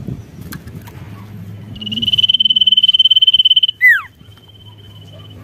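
A caged sirtu songbird (cipoh) calling: a loud high whistle held on one pitch with a fast trembling for about two seconds, broken off by a sharp downward-slurred note, then a fainter steady high whistle.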